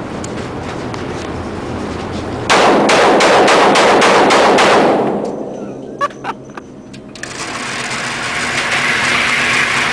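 Rapid gunfire: a fast string of shots, about five a second, lasting roughly two and a half seconds a little way in, followed by a few light sharp clicks.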